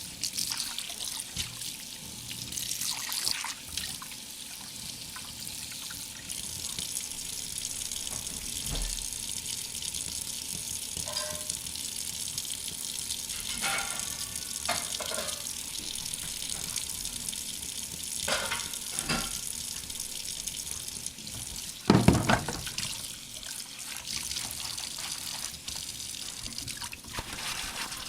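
Water running from a tap into a sink while dishes are washed, with scattered clinks and knocks of dishes, a few of them ringing briefly. One loud knock about three-quarters of the way through stands out above the rest.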